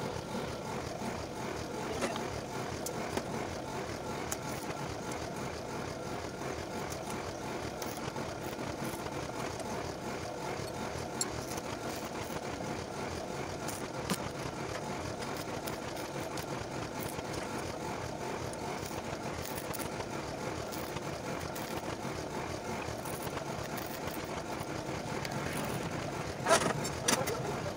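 Steady background noise, broken near the end by a short burst of crackling from a stick-welding arc as a steel bar of the grill frame is tack-welded.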